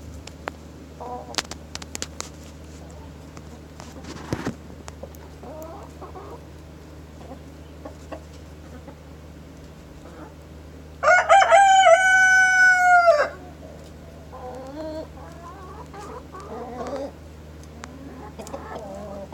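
A rooster crows once, loud and about two seconds long, starting about eleven seconds in. Before and after it, hens cluck softly over a steady low hum.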